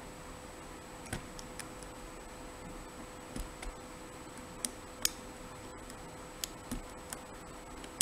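Lock pick and tension tool clicking against a dimple lock during picking: about nine light, irregular metallic ticks, over a faint steady hum.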